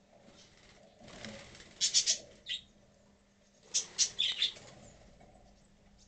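Budgerigars chirping in two short bursts of sharp, high calls about two seconds apart.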